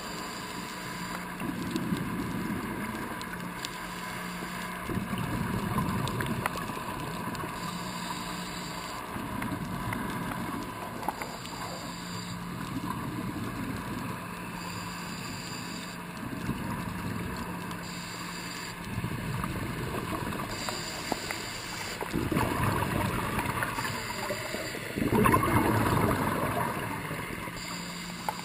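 Scuba diver's breathing heard underwater through the camera housing: exhaled regulator bubbles rumbling out every few seconds, loudest near the end, with fainter regulator hiss between them. A steady low hum runs underneath.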